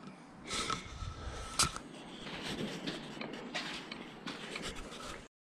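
Footsteps and scuffing over rubble and grit, irregular, with a sharp click about a second and a half in. The sound cuts off suddenly just before the end.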